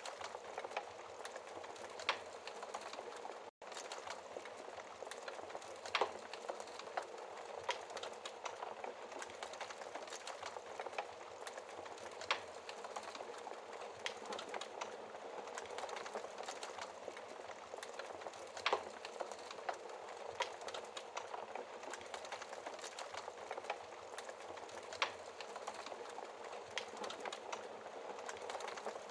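Wood fire burning with a steady crackle and hiss, and a sharper pop every few seconds. The sound cuts out for a split second about three and a half seconds in.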